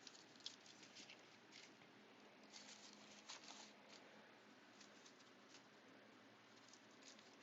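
Near silence with faint scattered rustles and light ticks of hands rummaging through a backpack pocket.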